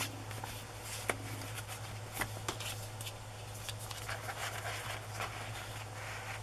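Soft paper rustling and light clicks as small paper cards and tags are handled and slid about in a junk journal's pages, over a steady low hum.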